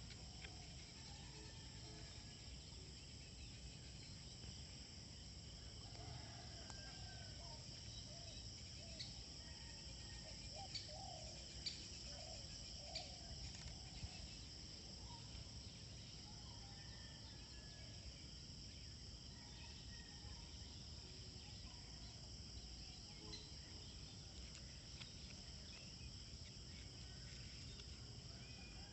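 Faint, steady high-pitched drone of insects such as crickets, with a few sharp clicks around the middle.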